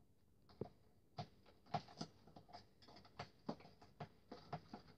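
A metal spoon stirring thickening glue slime in a plastic tub: faint, irregular clicks and taps of the spoon against the tub, about three a second.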